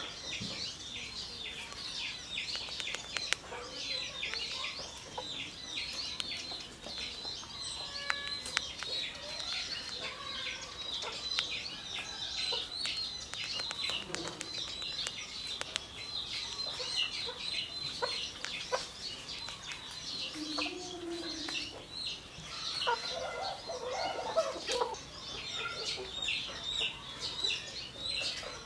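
Outdoor bird ambience: a steady chorus of fast, high-pitched chirping, with a few lower clucking calls, like a hen's, coming in about two-thirds of the way through.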